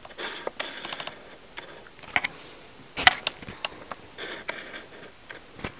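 Loose printed photo sheets from an album's folded photo book being handled and turned: soft rustles with scattered light clicks and taps, the sharpest about three seconds in.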